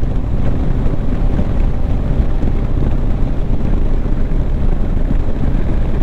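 Bajaj Dominar 400's single-cylinder engine running steadily at cruising speed, around 55 km/h, with wind rushing over the helmet-mounted microphone.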